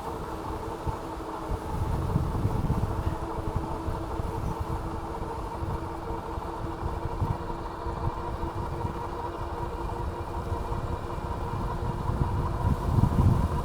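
Electric whine of the Philodo H8 AWD e-bike's dual hub motors under way: a steady stack of tones over a fluctuating low rumble that grows louder near the end.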